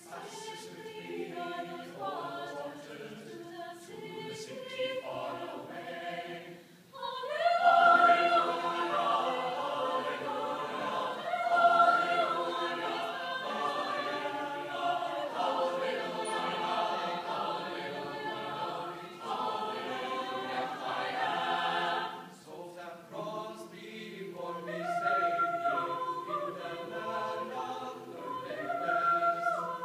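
Chamber choir singing, breaking off briefly about seven seconds in, then coming back in louder.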